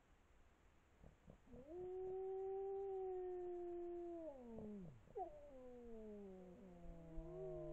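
Grey wolves howling. One long, level howl starts about a second and a half in and slides down in pitch at about four seconds. Then several more wolves join in with overlapping howls at different pitches, including a low one.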